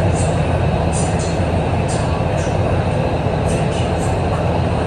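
Kunming Metro Line 5 train running between stations, heard from inside the car: a steady, loud rumble of wheels and running gear with no pauses. A public-address announcement plays faintly over it.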